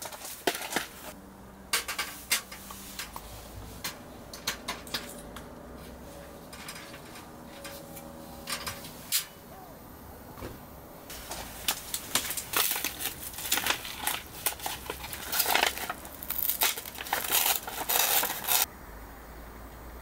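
Dishes and utensils clattering as they are handled: irregular clinks and knocks, sparse at first and much denser in the second half, stopping abruptly near the end.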